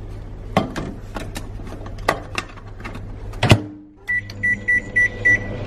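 Microwave oven: light clicks of a plastic ready-meal tray being handled over a low hum, then a loud clunk of the door, followed by a quick run of short, even electronic beeps from the control panel, about three a second, as the oven runs.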